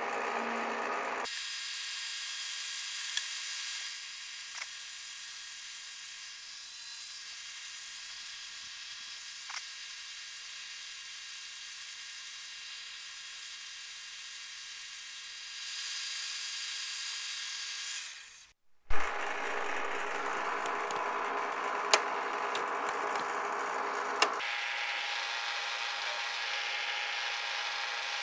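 Milling machine running and cutting metal: a steady machine drone with several fixed tones and an occasional faint click. The sound changes abruptly about a second in, and again after a brief dropout about two-thirds through, followed by a sharp knock.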